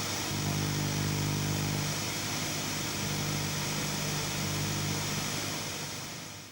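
A vehicle engine running steadily with a low hum and road or wind noise, fading out near the end.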